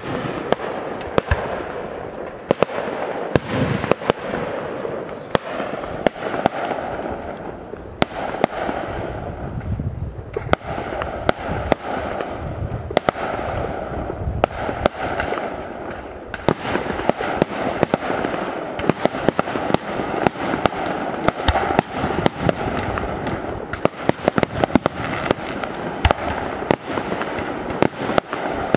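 Fireworks display: aerial shells bursting in a rapid string of sharp bangs over continuous crackling, with the bangs coming thick and fast near the end.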